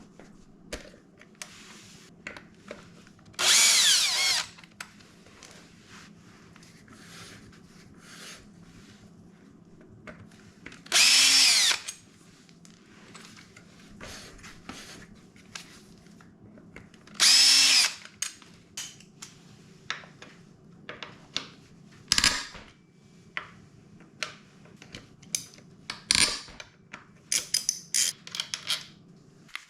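Power drill run in three short bursts of about a second each, its motor pitch rising and falling. Small clinks and taps of tools and parts come between, with a flurry of sharp ticks near the end.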